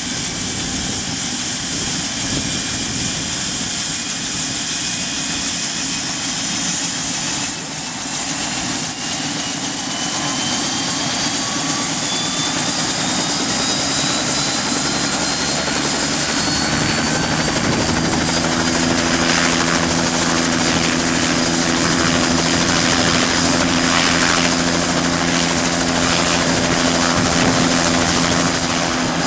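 Bell 206 JetRanger helicopter's Allison 250 turboshaft running on the ground. Its high turbine whine climbs in pitch through the first half and then levels off as the rotor comes up to speed. A steady deeper drone from the rotor sets in about two-thirds of the way through, the sign of a run-up to flight rpm before takeoff.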